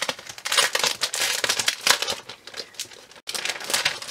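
Clear plastic wrapper on a paper pack crinkling as hands tear it open and pull it off, in quick irregular crackles with a brief break a little over three seconds in.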